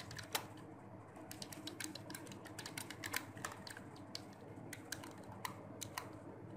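Computer keyboard being typed on: faint, irregular keystroke clicks with a low steady hum underneath.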